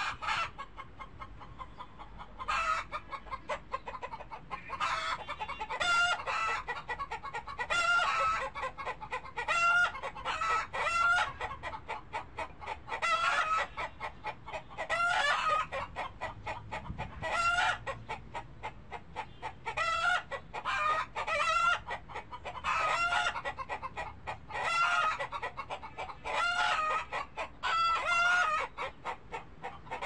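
Chickens clucking: a steady run of rapid clucks with a louder pitched call every second or two.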